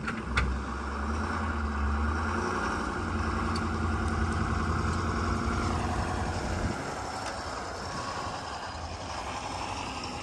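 A motor vehicle's engine running with a steady low rumble, which eases off about two-thirds of the way through.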